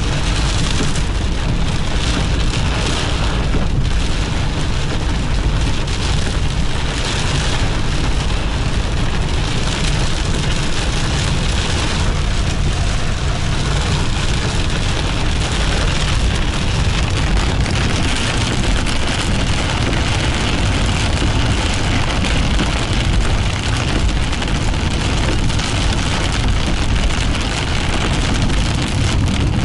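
Heavy rain hitting a moving car, heard from inside the cabin, over the steady noise of the car driving on a wet road.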